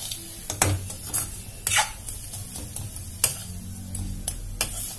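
Steel spoon stirring and scraping a dry mix of roasted vermicelli, milk powder and sugar in a metal kadhai, with scattered clinks of the spoon against the pan.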